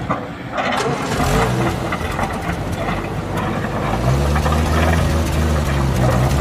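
Heavy vehicle engine sound, running as a low steady drone. It thins out briefly near the start and comes back stronger about four seconds in.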